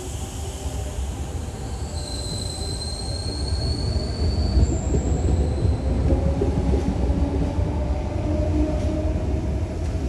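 Sydney double-deck electric suburban train moving past along the platform: a steady low rumble of the wheels, thin high squeals from about two seconds in until about five seconds, and a motor whine rising slowly in pitch through the second half as it gathers speed.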